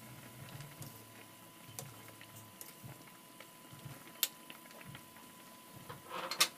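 Pot of chicken soup boiling: faint bubbling with scattered small pops and ticks. A sharp click about four seconds in and a louder clink near the end.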